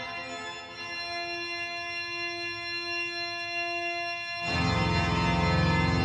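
Organ playing slow, sustained chords. About four and a half seconds in, a louder, fuller chord comes in with deep bass notes.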